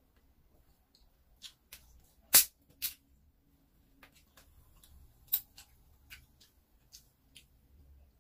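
Cap of a plastic soft-drink bottle being twisted open: a handful of short, sharp clicks and cracks, the loudest a little over two seconds in, with fainter ticks scattered between.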